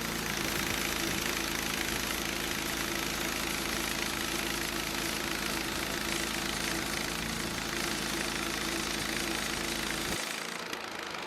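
Sawmill engine running steadily, with a constant low rumble and hiss; the low rumble cuts off suddenly near the end.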